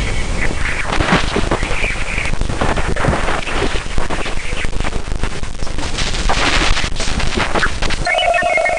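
Space 'sound' of Jupiter's moon Ganymede: loud, dense crackling and popping noise full of sharp bursts over a low rumble. Near the end it gives way to a steady tone with rapid high-pitched beeps.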